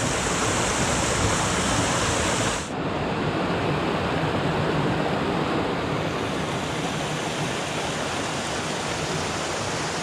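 Small mountain stream cascading over rocks into a pool: a steady rush of running water. Its tone changes suddenly about three seconds in.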